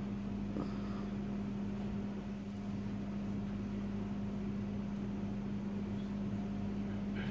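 A steady mechanical hum, with one strong low tone over a faint even hiss, unchanging throughout.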